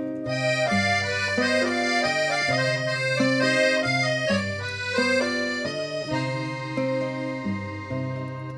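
Accordion playing a havanera tune in an instrumental passage: held chords over a low bass line that steps to a new note about once a second.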